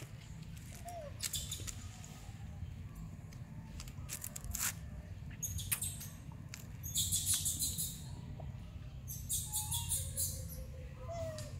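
Steady low outdoor rumble with scattered small clicks and brief high chirping, and a couple of short squeaky calls near the end.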